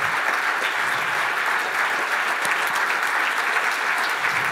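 Audience applauding steadily, a dense crowd of clapping hands.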